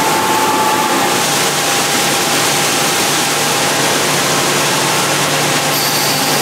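Grain cart auger unloading shelled corn into a semi trailer: a steady rushing hiss of corn pouring from the spout over the even drone of the Case IH Quadtrac tractor's engine, with a faint steady whine.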